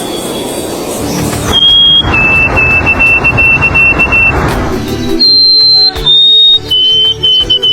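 A bird giving long, level whistled notes, each held a second or more and stepping up or down in pitch from one note to the next, over a steady low hum.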